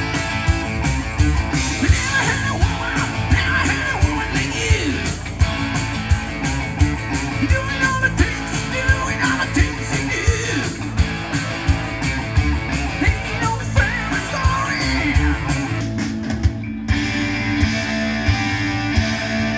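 Rock music with guitar, a steady drum beat and singing, switching abruptly near the end to a different passage with held notes.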